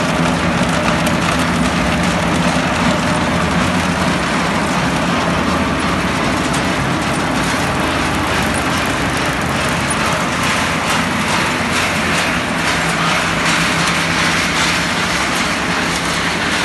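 Sawdust-pellet production machinery running: electric motors and belt conveyors give a loud, steady mechanical din with a low hum and a constant rattle of small clicks.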